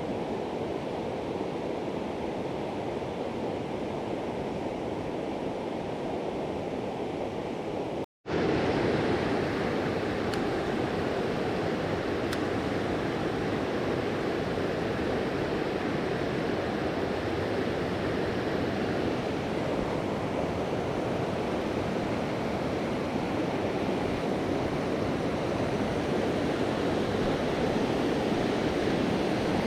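River water rushing steadily over rocks. It cuts out for an instant about eight seconds in and comes back a little louder.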